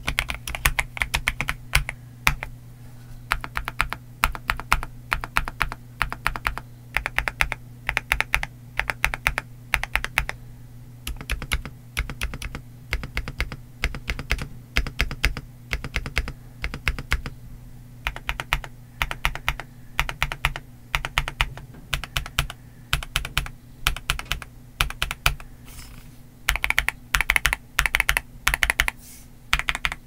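Typing on a CIY GAS67 mechanical keyboard with Outemu Lanny switches and Keytok KDA-profile PBT keycaps, its case dampened with Tempest, PET and PE foam. Runs of fast keystrokes are broken by short pauses.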